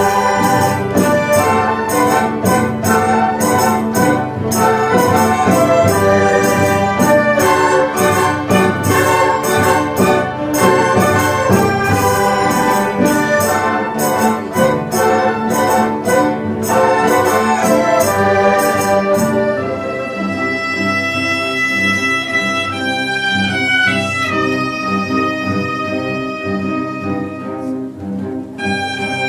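Chinese traditional orchestra playing, with its erhu section bowing. A fast, densely struck passage gives way about two-thirds of the way through to long held notes that step downward in pitch.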